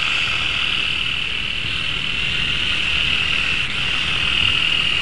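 Small radio-controlled helicopter in flight, its motor and rotor giving a steady high-pitched whine.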